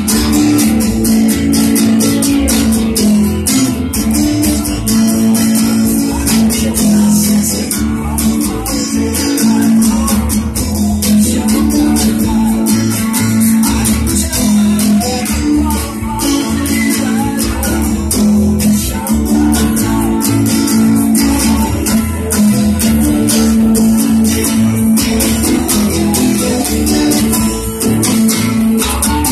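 Acoustic guitar strummed steadily, a continuous rhythmic chord pattern.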